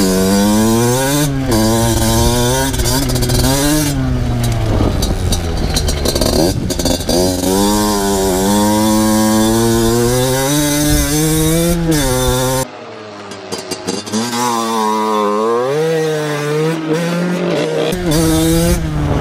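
Two-stroke motocross bike engine revving hard and climbing repeatedly in pitch, dropping back at each gear change. About 13 s in it suddenly turns quieter and thinner for several seconds before revving up again.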